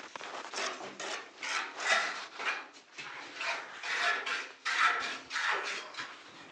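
Repeated rough scraping strokes, about two a second, of a hand tool rubbing over a cement surface in red oxide floor finishing work.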